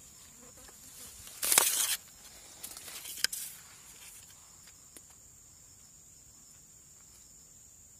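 Steady high-pitched drone of insects in the background, with a short loud rustling noise about one and a half seconds in and quieter rustles and a sharp click around three seconds in.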